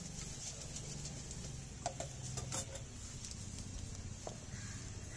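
A steady low hum with a few light metal knocks and clinks, about two seconds in and again shortly after, as jalebi are tipped from a metal scoop at a frying stall.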